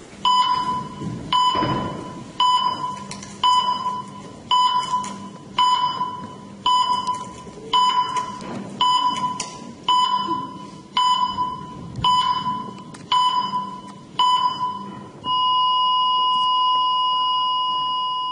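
Heart-monitor sound effect: an electronic beep at one pitch, about once a second, then an unbroken long tone of the same pitch for the last few seconds, the flatline that signals a heart stopping.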